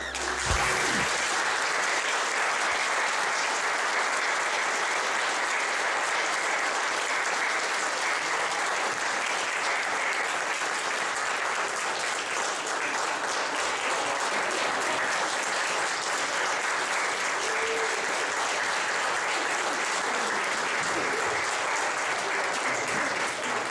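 Congregation applauding, starting suddenly and holding steady, then thinning out near the end.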